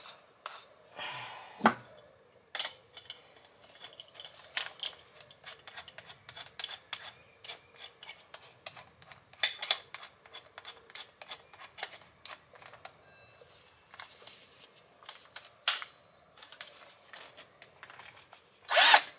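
Scattered clicks, taps and knocks of tools and objects being handled, irregular and a few louder than the rest, with no drill running.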